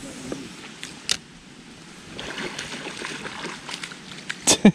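Small handling sounds in a plastic sit-on-top fishing kayak over faint water noise: a few light knocks, then a quick run of sharp clicks near the end.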